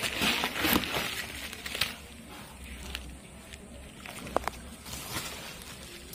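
Bubble wrap and plastic packaging crinkling and rustling as a wrapped item is lifted out of a cardboard box. It is loudest in the first two seconds, then quieter, with a few light clicks.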